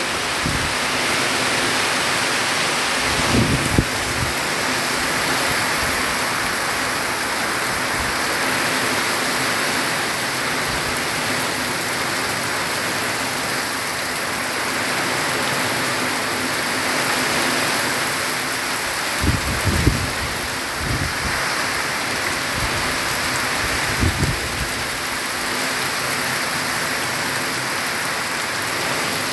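Heavy rain drumming on a corrugated zinc roof and streaming off its edge in a steady, dense hiss. Three brief low thumps break through it: a few seconds in, about two-thirds of the way through, and again a few seconds later.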